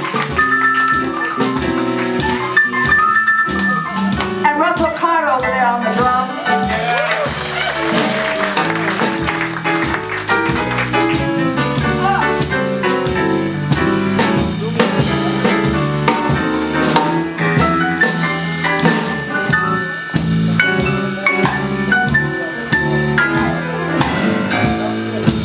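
A jazz-blues band playing an instrumental passage. A drum kit keeps a steady beat under a bass line and a lead instrument playing bent notes.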